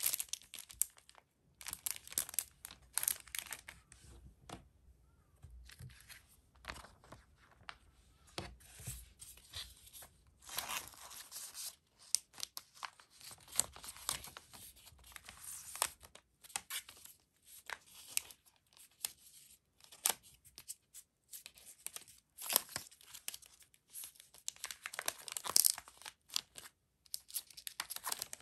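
Clear polypropylene postcard sleeve crinkling and rustling in the hands, with cardboard sliding against the plastic, in irregular close-up handling noises.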